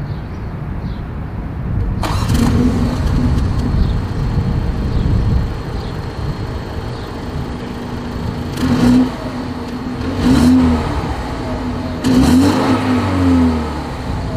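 2023 BMW X2's turbocharged four-cylinder engine heard at its dual exhaust tips. It starts and flares about two seconds in, settles to a steady idle, then is blipped up in short revs about three times in the second half.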